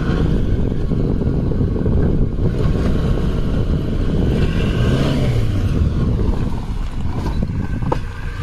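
Maruti Gypsy's four-cylinder petrol engine running at low speed as the vehicle is reversed and turned. The engine note rises and falls once about midway.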